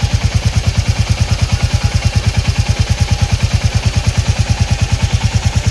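Motorcycle engine idling, a steady rapid pulse of about eleven beats a second.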